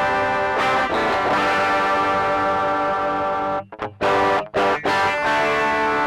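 Electric guitar playing ringing chords through an Archer overdrive pedal, lightly driven and very even in volume. The chords are choked off briefly twice a little past halfway, then struck again.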